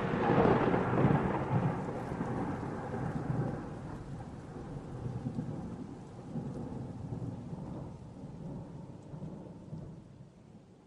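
Rolling thunder over rain: a long rumble, the tail of a thunderclap, that slowly fades away.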